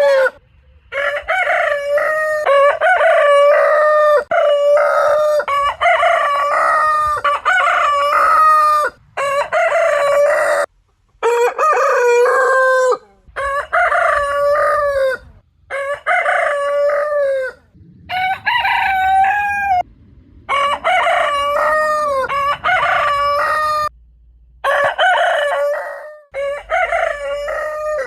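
Rooster crowing again and again, one cock-a-doodle-doo after another, with abrupt cuts between the crows.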